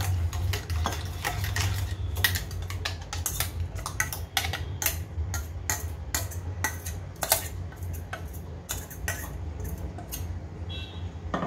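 Irregular metallic clicks and scrapes from a stainless-steel mixer-grinder jar as ground moong paste is scraped out of it into a bowl, over a steady low hum.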